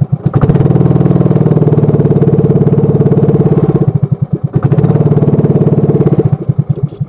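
Motorized outrigger boat's engine running loudly at close range with a rapid firing beat, easing briefly about four seconds in, then turning uneven and cutting out near the end.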